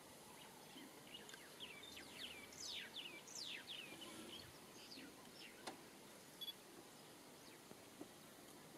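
Faint wild birdsong over a low background hiss: a run of quick, high, falling chirps in the first half, then a few scattered calls.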